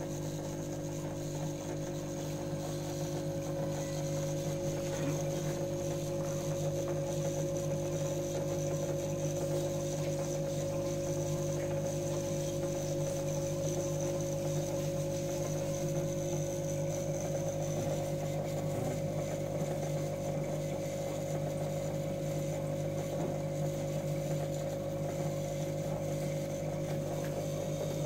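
Aquarium air pump running with a steady electric hum.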